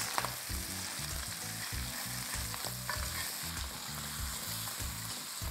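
Mutton, tomatoes and green chillies frying in butter and ghee in a kadai, a steady sizzle, while a spatula stirs them with a few light taps and scrapes against the pan.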